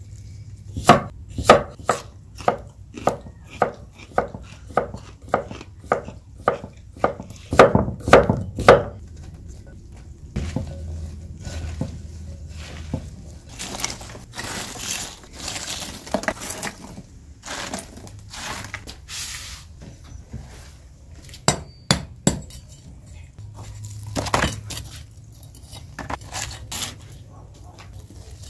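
A knife chopping on a wooden cutting board, about two sharp strokes a second for the first nine seconds. Then a rough scraping of charcoal ash in a brick grill's firebox, and near the end scattered knocks as a cleaver breaks into a baked salt crust.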